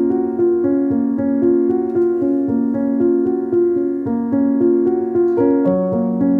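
Background music: a keyboard melody of sustained notes that change every fraction of a second at an even pace.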